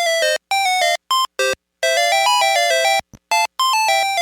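VTech Alphabert talking robot toy playing one of its short electronic jingles: a quick melody of buzzy synthesized beeps stepping up and down in pitch, in several short phrases with brief gaps between them.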